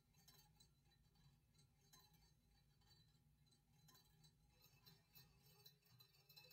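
Near silence: faint room tone with scattered light ticks, more of them in the second half.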